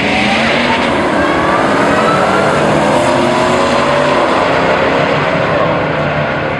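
Drag race pass: a 2000 Ford F-150 Lightning pickup's supercharged 5.4-litre V8 and a competing car's engine accelerating hard down the strip, the engine pitch rising and dropping back at each gear change over the first few seconds, then holding high.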